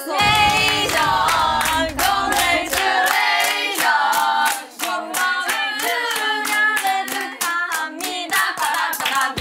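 A group of young women singing a congratulations song together while clapping in time, about three claps a second.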